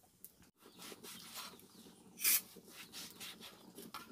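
Large kitchen knife cutting up raw beef ribs on a cutting board: scattered soft knocks and clicks, with one short, sharp rasp a little past halfway.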